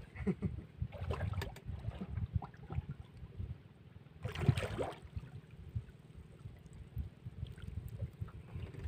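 Small outrigger canoe being paddled: paddle strokes and water splashing and sloshing against the hull, irregular throughout, with one louder splash about halfway through.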